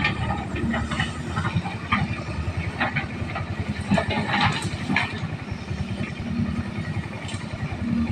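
Excavator diesel engine running steadily, with scattered short knocks and squeaks over it.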